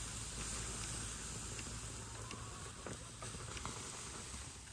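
Wood cooking fire crackling: a steady hiss with scattered small pops.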